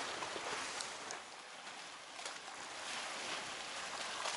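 Choppy sea water washing and splashing against a boat ramp, a steady rushing noise that drops a little about a second in and picks up again about two and a half seconds in.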